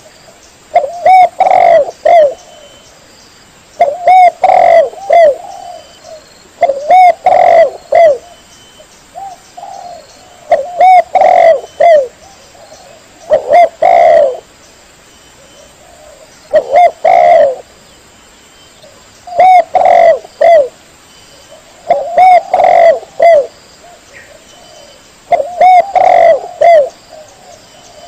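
Spotted dove cooing: a loud phrase of several short coos, repeated about every three seconds.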